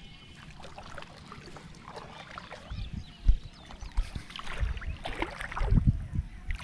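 Shallow muddy water sloshing and splashing in short, irregular bursts as hands grope through it for fish, with a few low thumps, the strongest about three seconds in and near the end.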